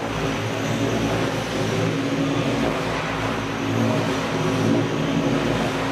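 Electric RC scale CH-47 Chinook model helicopter running on the ground, its motors and tandem rotors making a steady whir with a low hum.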